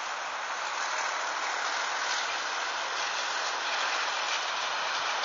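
A ChME3 diesel shunting locomotive approaching along the track: a steady rushing noise that grows slowly louder.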